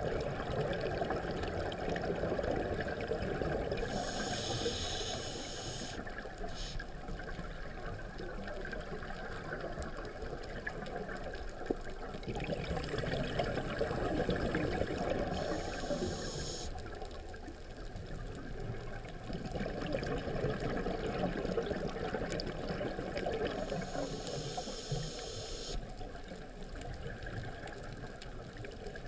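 Muffled underwater rushing heard through a camera housing, with a scuba regulator's breath hiss three times, about ten seconds apart.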